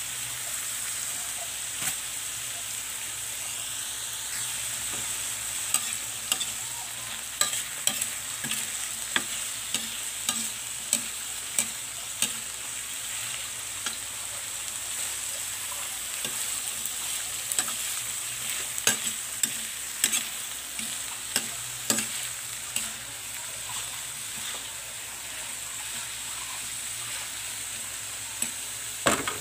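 Sliced bitter gourd (ampalaya) sizzling in a metal pan while being stirred with a ladle. A string of sharp knocks and scrapes of the ladle against the pan runs through the middle stretch and comes again near the end.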